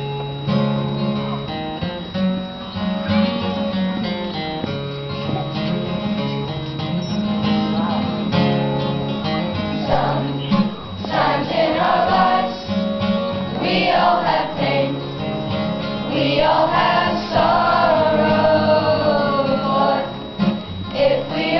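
Acoustic guitar playing chords, with a children's choir singing along from about halfway through.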